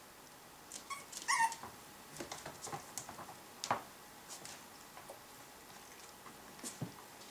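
Seven-week-old Norwich terrier puppies playing: a brief high whine about a second in, then scattered small clicks and taps.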